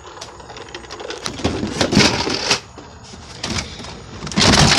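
Plastic Nerf blasters being handled and moved about, giving clicks and clattering, with a louder clatter near the end.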